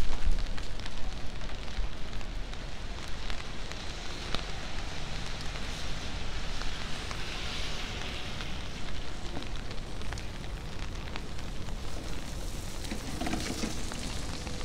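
Light rain pattering on wet surfaces: a steady hiss full of small drip ticks.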